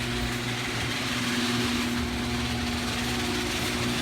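A motor running steadily at a constant pitch, with no change in speed.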